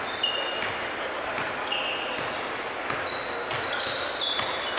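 Basketball sneakers squeaking on a hardwood gym floor, many short high squeaks, with a basketball bounced on the floor a few times in the second half.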